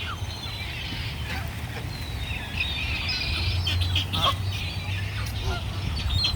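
A flock of wild birds calling together, many short overlapping calls and chirps, over a low steady rumble.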